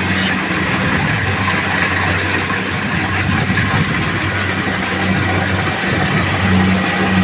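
Rice combine harvester running: a steady low engine hum under a broad mechanical rush. The hum weakens about a second in and comes back strongly near the end.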